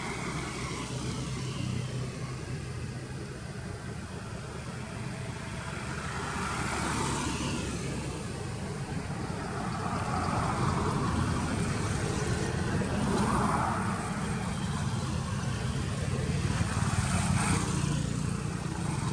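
Road traffic: a steady low rumble with several vehicles passing in turn, each one swelling and fading, the later passes louder.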